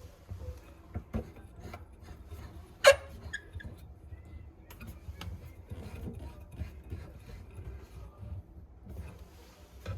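Handling noises: rubbing and scraping with scattered light knocks, and one sharp clack about three seconds in.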